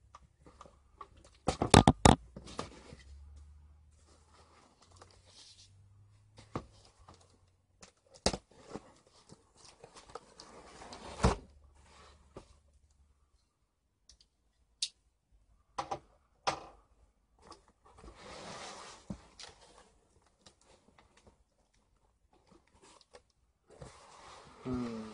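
Cardboard box being handled and opened by hand: irregular sharp knocks and thumps, the loudest cluster about two seconds in, with scraping, rustling and tearing of cardboard.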